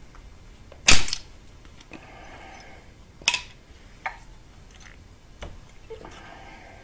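Sharp metal clicks and clanks as a hose clamp is loosened and a metal tube fitting is worked off a Subaru EJ257 engine block, the loudest about a second in and another a little past three seconds, with lighter ticks and some scraping between.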